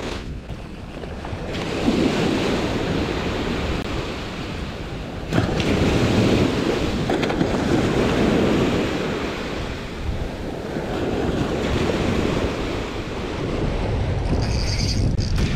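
Surf washing onto the shore with wind buffeting the microphone: a steady rushing that swells and eases, jumping louder about five seconds in.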